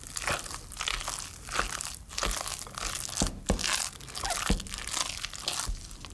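Wooden spoon mixing a thick mashed-potato filling in a glass bowl: irregular wet scraping and squishing strokes, with a few sharp knocks of the spoon against the glass.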